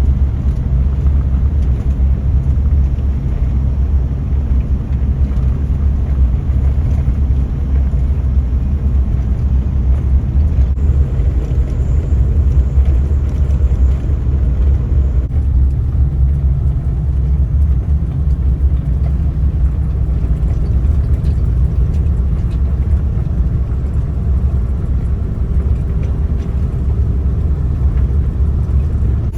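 Suzuki Jimny JA11 on the move: steady, low rumble of engine and road noise.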